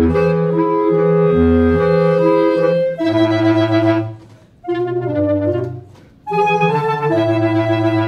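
Clarinet trio, two clarinets and a bass clarinet, playing held notes in chamber music, with the bass clarinet sounding low notes beneath the upper voices. The playing breaks off briefly twice near the middle between phrases.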